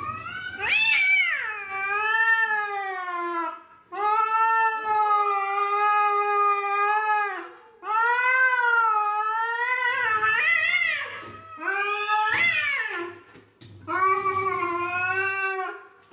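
Orange tabby cat caterwauling at another cat through a window pane: about five long, drawn-out yowls that waver up and down in pitch, with short breaks between them.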